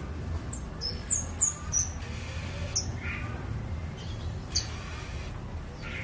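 Caged kemade flowerpecker calling: a quick run of short, sharp, high-pitched chips about a second in, then single chips near the middle. A steady low hum runs underneath.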